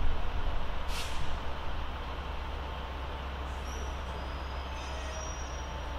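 Pair of diesel locomotives, a Class 73 coupled to a Class 66, running slowly with a steady low rumble. A short burst of air hiss comes about a second in, and faint high thin squeals come later on.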